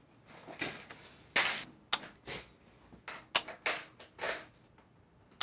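A string of sharp clicks and knocks at irregular intervals, loudest about a second and a half in and again a little past three seconds.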